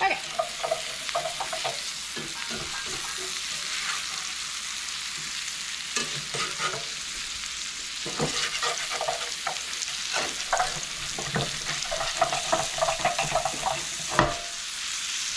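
Cubed potatoes sizzling in hot oil with bell peppers and onions in a cast iron skillet, while a utensil stirs and scrapes the pan in quick irregular clicks and scrapes over a steady hiss.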